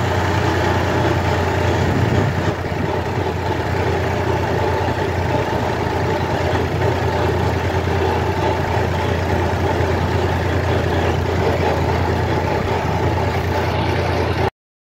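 David Brown 880 tractor's diesel engine running steadily as the tractor is driven, being warmed up after a service. The sound cuts off suddenly near the end.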